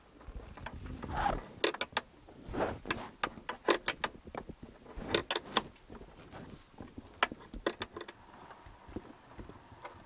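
Irregular metallic clicks and clinks of a stubby spanner on the nut and bracket of a classic Mini's brake light switch as the nut is worked loose by hand. The loudest clinks come about four seconds in.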